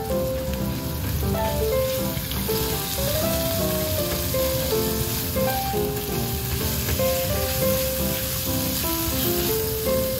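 Mixed ground beef and pork sizzling steadily as it fries in an oiled pan, stirred and broken up with a spatula. Background music with a light melody plays throughout.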